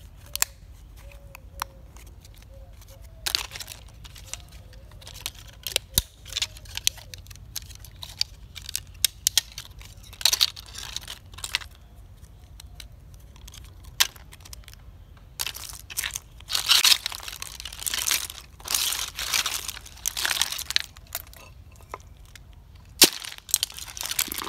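Broken hard-plastic toy monster truck pieces being twisted and pulled apart by hand: scattered sharp plastic cracks, snaps and clicks. A busier stretch of crackling and rattling comes about two-thirds of the way in, and one loud sharp knock comes shortly before the end.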